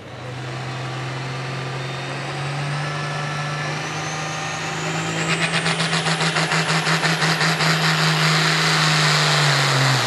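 Turbocharged diesel engine of a hot farm pulling tractor running hard, with a turbo whine that climbs steeply in pitch over the first few seconds. From about halfway through, a rapid, even pulsing of about five beats a second rides on the engine as it grows louder.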